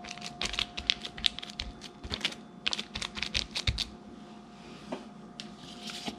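Thin plastic sheet from a cut Ziploc bag crinkling and clicking under the hands as a dough turnover is folded shut and its edges pressed to seal. Rapid runs of small clicks for about four seconds, a pause, then a few more near the end.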